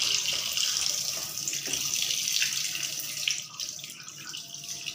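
Kitchen tap running into a sink of catfish being washed by hand, the water splashing over the fish. The flow is steady and a little quieter from about three seconds in.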